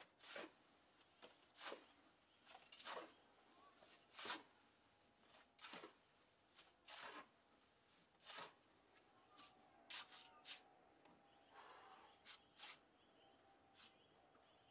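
Shovel strokes mixing wet concrete in a wheelbarrow: faint, short scraping sounds repeated at irregular intervals of about one a second.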